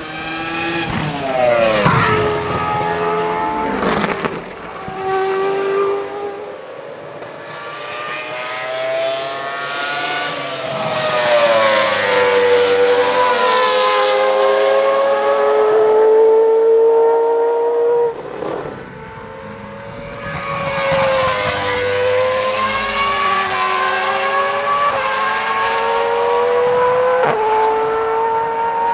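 Toro Rosso STR1's Cosworth 3.0-litre V10 at high revs: accelerating hard through the gears, the high-pitched note climbing steeply and stepping back down at each quick upshift, with a few sudden lifts off the throttle.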